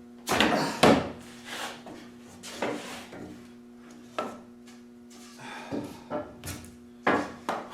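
Tongue-and-groove wooden boards being pulled apart and handled: irregular wooden knocks and scraping, loudest about half a second in and again near the end, over a steady low hum.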